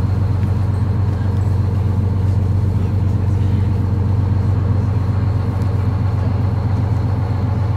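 Tour boat's engine idling at the dock: a steady low drone.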